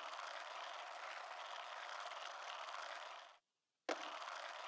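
Faint, steady hiss with no voice. It drops out to silence about three and a half seconds in and resumes with a click half a second later.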